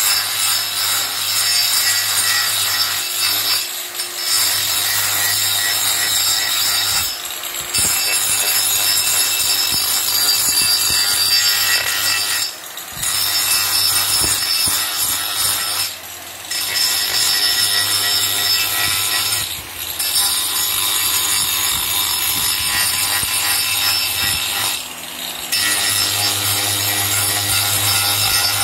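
Handheld angle grinder with a sanding disc running and sanding a wooden carving, a high whine over the grinding of abrasive on wood, with about six short breaks where it eases off the wood.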